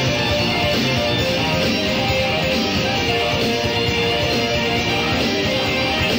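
Live rock band playing an instrumental passage with guitars, recorded from the audience as a bootleg, with a dull, muffled top end.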